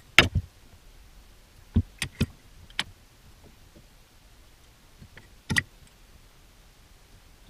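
Metal center finder clicking and knocking against the end of a steel tube as it is fitted and handled. The sharp clicks come singly and in small groups: a pair at the start, three about two seconds in, and one more each near three and five and a half seconds.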